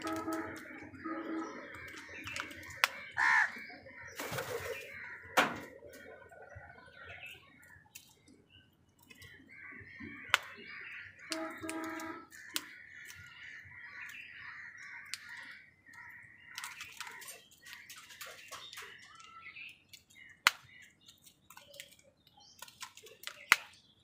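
House crows feeding: sharp, scattered taps of their beaks pecking at food, with short harsh caws near the start and again about halfway through, over a steady high chatter of bird calls.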